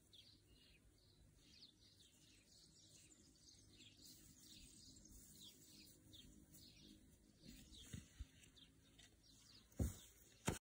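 Faint birdsong: many short, quick falling chirps from small birds. Near the end come a few thumps, footsteps close to the microphone.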